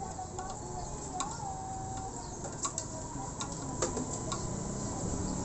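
Irregular light metallic clicks and ticks of a hand tap and tap wrench being turned to cut a new 6.0 thread in the air-screw bore of a Suzuki Smash 115 carburetor.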